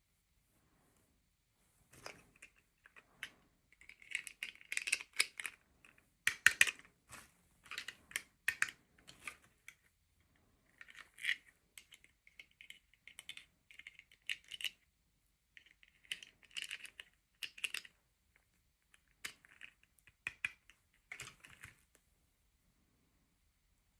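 Hands handling small plastic toy parts and packaging: irregular clicks, taps and crinkles in clusters, with short pauses between them.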